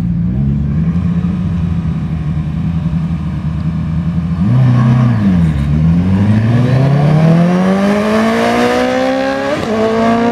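Street-legal sport motorcycle engines idling at a drag-strip start line, with one brief rev up and back down a little before halfway. The bikes then launch, and the engine pitch rises steadily and continuously through the rest of the run.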